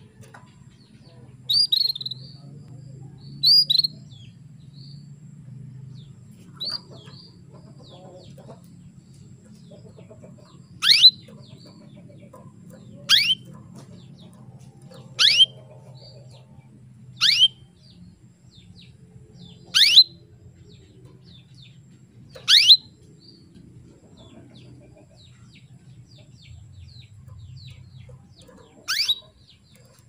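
Female canary calling: two short twittering calls, then a run of sharp single calls that sweep steeply downward in pitch, about one every two seconds, with a longer pause before the last. It is the female's call to a male, used to coax male canaries into singing. A low steady hum lies underneath.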